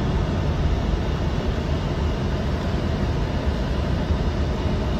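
Steady road and engine noise heard from inside a moving car's cabin.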